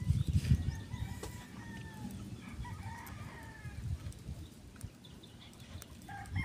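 Chickens calling in the background: a drawn-out, slightly falling call about a second in, shorter calls around three seconds, and more near the end. A low rumble on the microphone is loudest in the first half second.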